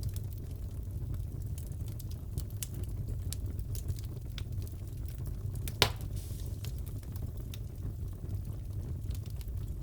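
Wood fire crackling in a fireplace: a steady low rumble under many small scattered crackles, with one loud sharp pop a bit past halfway.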